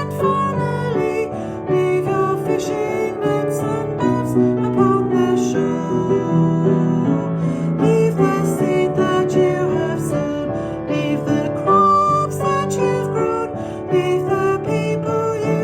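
Music: a gentle worship song playing with piano accompaniment.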